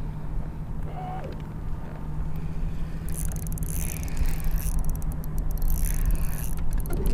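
A boat motor humming steadily under a low rumble that slowly grows louder, joined from about three seconds in by a crackling hiss that stops shortly before the end.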